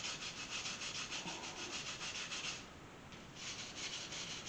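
Hand wire brush scrubbing caked dirt and old grease off a cast-iron engine block, in quick, even back-and-forth scratching strokes. The strokes pause briefly past the middle, then start again.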